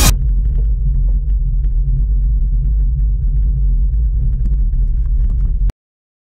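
Steady low rumble of a road bicycle being ridden over rough asphalt: wind on the microphone and tyre noise. It cuts off abruptly near the end.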